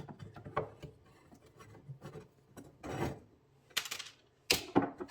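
Metal fittings of a toy steam engine's firebox being worked loose by hand: light clicks and rubbing, then a few short rasping scrapes in the second half.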